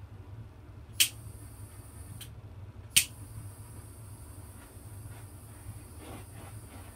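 Small handheld torch's igniter clicking: a sharp click about a second in, a fainter one, then a second sharp click that lights it, after which the flame hisses steadily as it is passed over wet acrylic paint to pop air bubbles.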